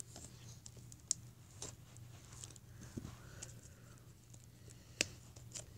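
Faint, scattered clicks and scratches of fingers working at a sealed baseball card box, with the sharpest click about five seconds in. A low steady hum runs underneath.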